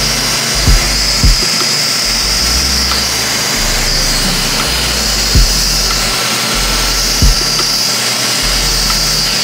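Laser hair removal machine running on an underarm treatment: a steady loud hiss with a high whine, broken by four short low thumps at irregular moments.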